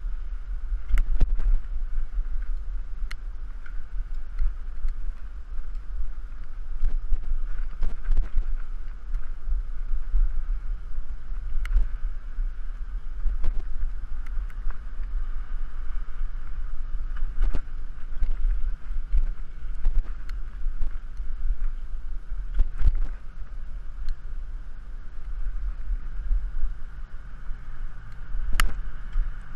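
Wind buffeting the microphone of a bike-mounted GoPro while riding, a steady low rumble, with a scattered dozen or so sharp knocks and rattles as the bike jolts over the sidewalk.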